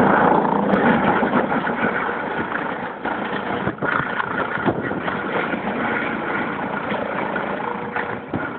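Eurocopter EC155 twin-turbine helicopter hovering: steady rotor and turbine noise with a faint whine running through it, a little louder in the first second.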